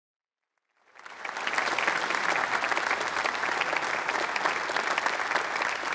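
Audience applauding. It comes in from silence about a second in, then holds steady and dense.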